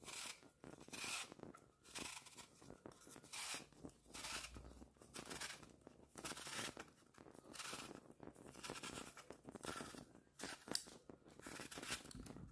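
Metal vegetable peeler scraping the skin off an apple in short, faint strokes, about one a second.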